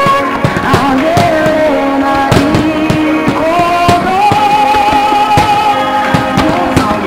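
Music with a held, gliding sung melody, mixed with repeated sharp bangs and crackles of firework shells bursting throughout.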